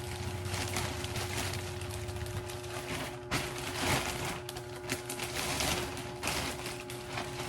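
Packaging being handled and opened: irregular crackling rustles and small clicks, over soft background music.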